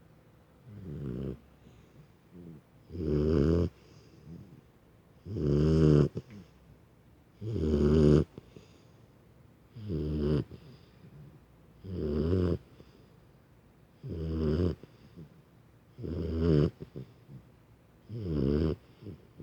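Five-month-old puppy snoring like an adult person: about nine long snores, one every two seconds or so, each swelling in loudness and then cutting off.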